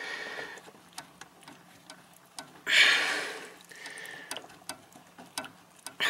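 Light, scattered clicks and taps of a plastic bleed-kit line being worked into a brake master cylinder's outlet port, with a short hissing rush about three seconds in.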